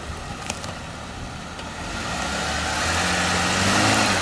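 Jeep Wrangler JKU's engine running and pulling, its pitch rising and growing louder over the last two seconds along with rising road noise, with a single sharp click about half a second in.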